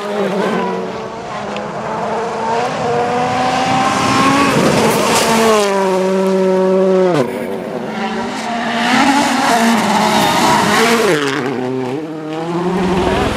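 Volkswagen Polo R WRC rally cars' 1.6-litre turbocharged four-cylinder engines driven hard on gravel, the engine note climbing and falling through gearshifts and throttle lifts. It drops steeply and cuts abruptly about seven seconds in, then dips and climbs again near the end.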